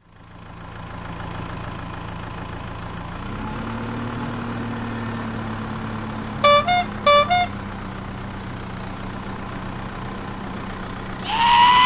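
Truck engine sound effect running steadily, its pitch stepping up slightly about three seconds in, with two short horn toots about six and a half seconds in.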